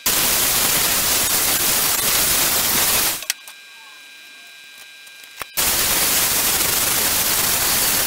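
Angle grinder grinding down fresh welds on a steel car sill, a steady harsh hiss. It stops about three seconds in and starts again after a pause of about two seconds.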